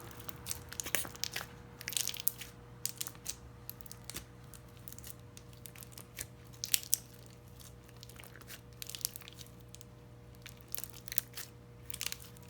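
Hands squishing and kneading a crunchy-textured slime, giving irregular crackling clicks and pops in clusters.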